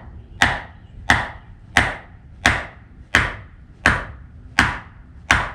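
Hammer blows driving a steel wedge anchor into a drilled hole in concrete: eight sharp, evenly paced strikes, about one every 0.7 seconds, each ringing briefly.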